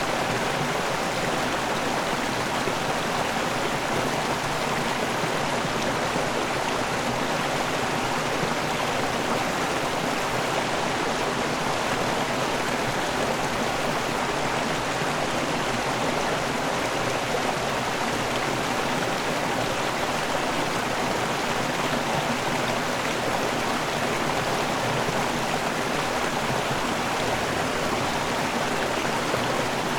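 River waterfall: water rushing and splashing in a steady, unbroken wash.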